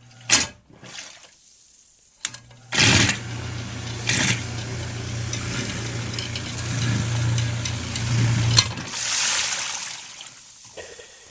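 Newly installed sump pump on its first test run: it switches on about two seconds in and runs with a steady hum and the rush of water being pushed up the discharge pipe. It cuts off with a click about six seconds later, followed by a short rush as water drains back down the pipe, which has no check valve.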